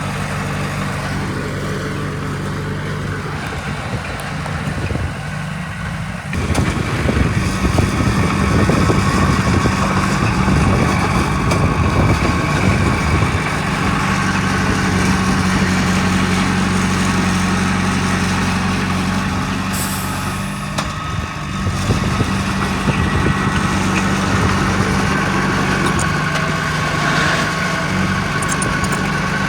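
Heavy diesel engine of earthmoving machinery running steadily, picking up and working harder about six seconds in, easing off briefly past the two-thirds mark and then working again, with a short sharp hiss around then.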